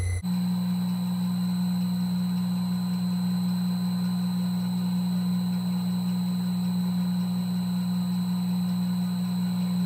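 Myford Super 7 metal lathe running with a steady, even hum while a slot drill in a tool-post collet chuck cuts the bore of an aluminium workpiece.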